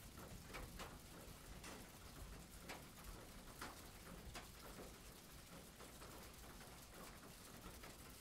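Near silence with faint, irregular soft taps about once a second: a fine brush dabbing and stroking oil paint on stretched canvas.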